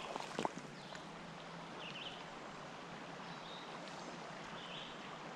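A small stream flowing steadily, with a few sharp clicks near the start and two brief faint high chirps later on.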